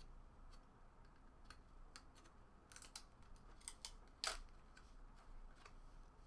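Faint scattered clicks and ticks of 1996-97 Skybox Premium basketball cards being handled and flipped through, with one sharper snap about four seconds in.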